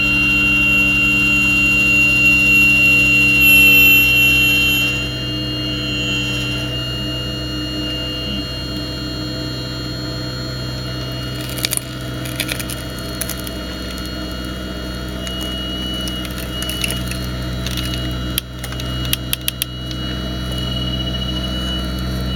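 Radio-controlled Hitachi 870 scale excavator working, its motors giving a steady high whine that is louder for the first few seconds and shifts in pitch as the arm moves. A few brief clicks and rattles come partway through and again later on as the bucket works the dirt.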